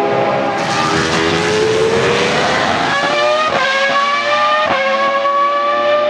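Ferrari Formula 1 car's engine screaming at full throttle as it pulls away. The pitch climbs steadily, then drops for a moment at quick upshifts about a second apart in the second half.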